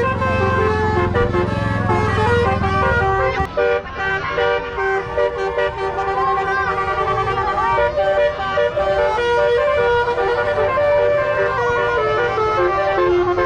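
Tour bus telolet horn, a multi-tone air horn, playing a quick tune of stepped notes, over a low engine rumble that fades about three seconds in.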